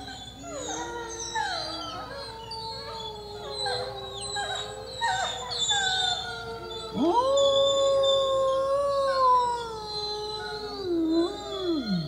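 A pack of wolves howling and whining close up, many voices overlapping. Short falling whines and howls crowd the first half; about seven seconds in, one wolf starts a loud long howl that sweeps up, holds steady, and drops away near the end.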